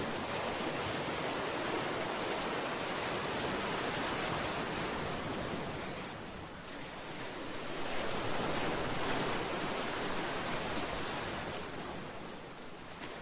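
Sea waves breaking against a seawall and breakwater: a continuous rushing wash that eases about halfway, surges again, and falls away near the end.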